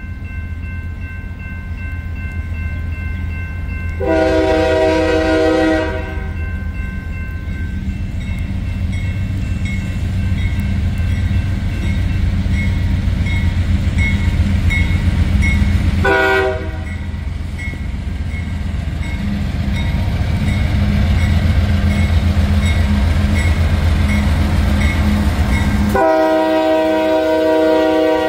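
Diesel freight locomotive approaching a grade crossing, its engine rumbling louder as it nears, sounding its horn three times: a blast of about two seconds, a short toot about twelve seconds later, and a long blast near the end. A crossing bell rings steadily underneath.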